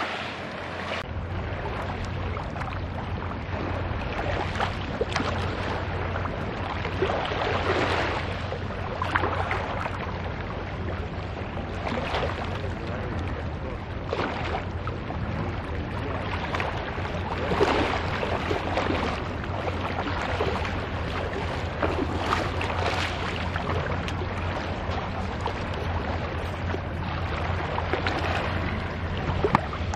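Small waves lapping on a shingle shore, swelling and ebbing every second or two, over a steady low rumble.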